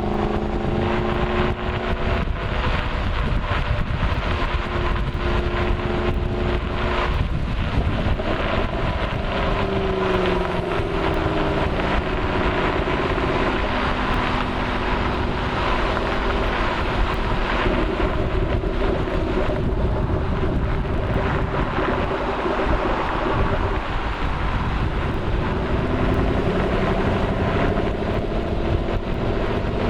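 Ford Mustang Shelby GT500's V8 under way: the engine note rises and falls with acceleration and lifting off, including a long slow fall in the middle, over heavy road and wind rumble. Sharp exhaust crackles are scattered through it.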